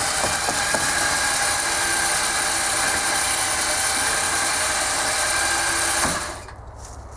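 Electric winch running steadily under load, reeling in its line as it drags a heavy old boat up onto a trailer. It stops about six seconds in.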